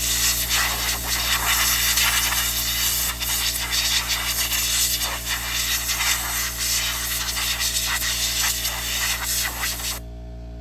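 Loud steady hiss of rushing air with crackling through it, cutting off suddenly near the end: a compressed-air blowgun blowing dirt out of the mower's clogged air filter.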